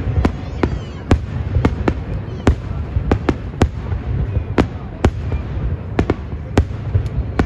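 Aerial firework shells from a Nomura Fireworks display bursting in quick, uneven succession, about three sharp booms a second over a continuous low rumble.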